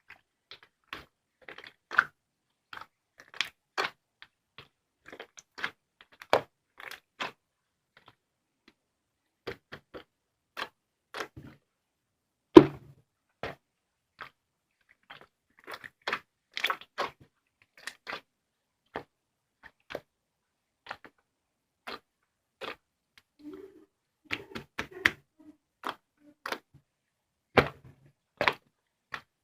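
Scattered, irregular clicks and taps, with a louder thunk about twelve seconds in.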